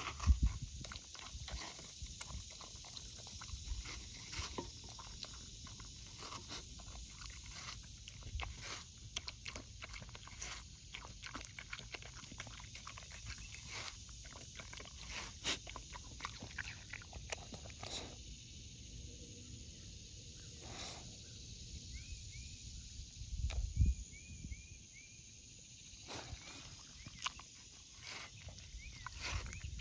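A small dog eating a slice of watermelon: irregular wet licking, slurping and chewing as it bites into the juicy flesh. The sounds thin out for a few seconds past the middle and pick up again near the end.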